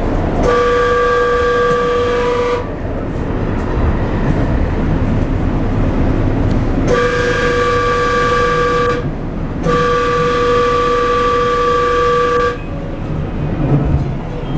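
Light rail train horn sounding three long blasts, each two to three seconds, the last two close together, over the steady rumble of the train running. Heard from inside the car.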